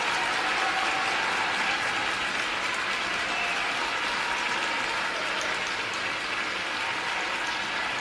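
Audience applauding, a steady wash of clapping that eases off slightly.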